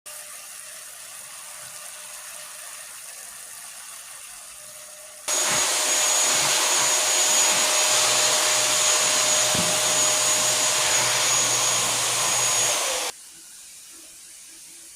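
A small electric motor appliance switches on about five seconds in, runs steadily with a high whine for about eight seconds, then switches off abruptly.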